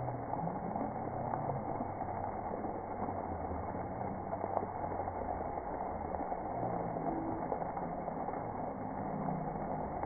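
Steady rush of water spraying at a splash pad, with faint low voices underneath.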